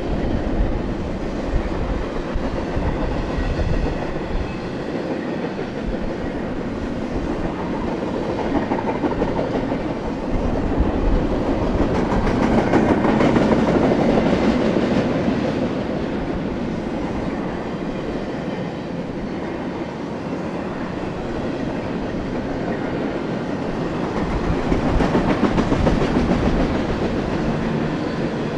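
BNSF double-stack intermodal freight train's well cars rolling past, steel wheels on rail making a continuous rumble with clickety-clack. The sound swells about halfway through and again near the end.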